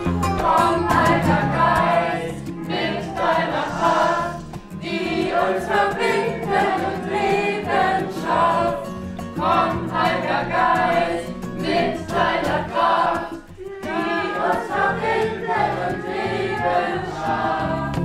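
A group of voices singing a song together with music, in phrases separated by short breaks.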